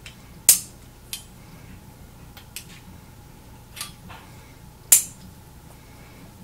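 Colt Single Action Army revolver being loaded with snap caps through the open loading gate: a few sharp metallic clicks at irregular intervals as the cylinder is turned chamber by chamber and the dummy rounds go in, the loudest about five seconds in.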